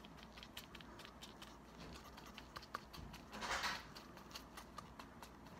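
Faint, quick light tapping and rubbing of a sponge pouncing paint onto a vinyl reborn doll leg, with the rustle of nitrile gloves handling it; a brief soft swish about three and a half seconds in.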